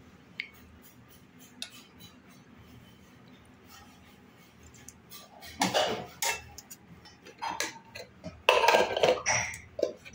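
Stainless-steel ladle, bowls and plate lids clinking and clattering against each other: a couple of light clinks in the first two seconds, a loud clatter about six seconds in, and a longer run of clattering for about a second and a half near the end.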